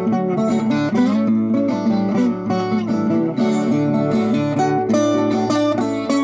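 Viola caipira being played: a continuous run of plucked steel-string notes with no pauses.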